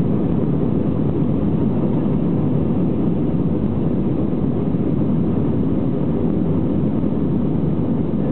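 Cabin noise of an Airbus A320-family jet heard from a seat over the wing as it taxis onto the runway: the engines at idle give a steady low rumble, with no spool-up.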